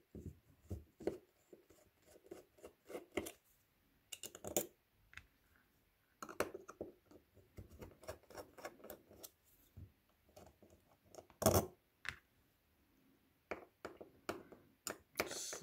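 Small screwdriver turning out the screws of a HEMA pencil sharpener's three-jaw chuck: irregular small clicks and scrapes of metal on metal, with two louder clicks in the second half.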